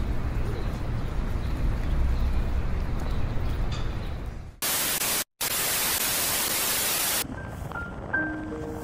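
A low rumbling background gives way, about four and a half seconds in, to roughly two and a half seconds of loud white-noise static with a brief dropout in the middle. Soft music with separate bell-like notes follows.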